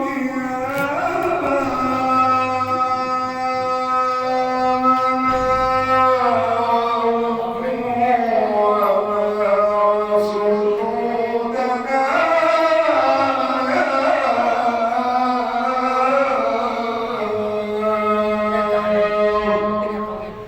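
A man's voice chanting an Arabic supplication (du'a) melodically, in long held notes that slide slowly down and back up in pitch.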